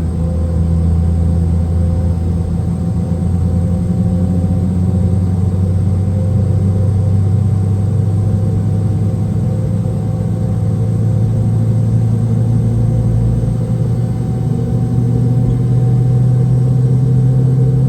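Boeing 717-200's rear-mounted Rolls-Royce BR715 turbofan engine spooling up during start, heard from inside the rear cabin: a steady loud low hum whose pitch creeps slowly upward.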